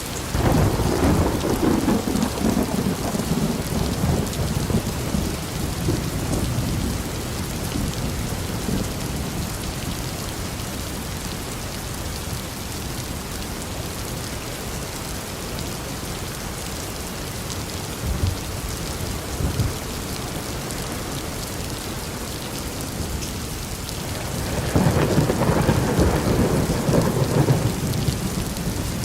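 Steady rain with rolls of thunder. One deep rumble breaks out just after the start and dies away over several seconds, and another rolls in near the end.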